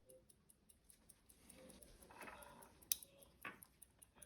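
Faint, even ticking of a freshly serviced 1915 Omega pocket watch, about five ticks a second. A single sharper click comes about three seconds in, with faint handling noise around it.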